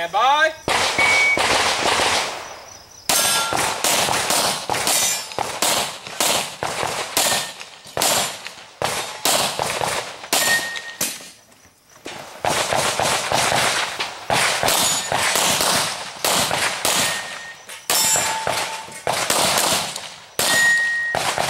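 Strings of rapid handgun shots at a practical shooting stage, with steel targets ringing with a clang when hit. There is a brief lull about halfway through before the shooting resumes.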